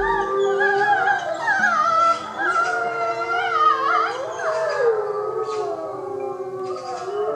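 A pack of grey wolves howling in chorus: several long howls at once at different pitches, each wavering and sliding up and down. The chorus gradually fades over the last few seconds.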